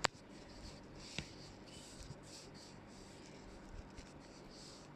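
Faint handling noises in a small room: a sharp click at the start and a smaller one about a second in, over light scratching or rubbing like pen or paper.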